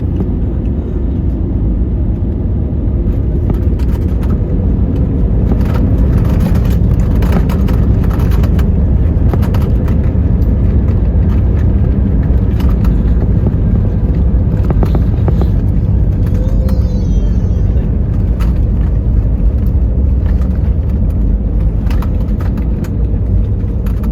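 Steady low rumble of an Airbus A320 heard from inside the passenger cabin after landing, engines and airframe running, with a few brief rattles about six to nine seconds in.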